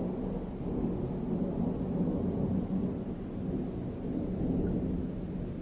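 Thunder rumbling low, swelling and easing a couple of times as it slowly fades.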